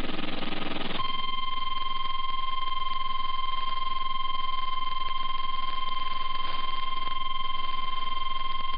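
The NOAA Weather Radio 1050 Hz warning alarm tone, a single steady pitch that starts about a second in and holds without change. It is the tone sent ahead of a weather warning broadcast. It follows about a second of noisy, hissy sound.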